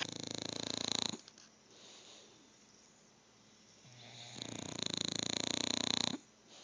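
Two pets sleeping side by side and snoring: one long, loud snore ending about a second in, quiet breathing, then another long snore from about four seconds in, cutting off near six seconds.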